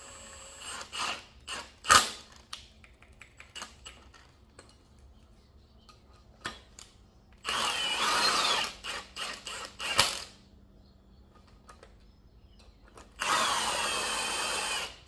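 Impact wrench running in two bursts of about two seconds each, spinning wheel studs in, its whine wavering in pitch. Between the bursts come metal clicks and clanks of sockets and parts, the loudest a sharp clank about two seconds in.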